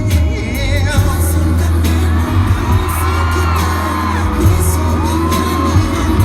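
Loud live pop music over a concert sound system: a heavy, steady bass beat under long held melodic notes, with a few sharp percussive hits.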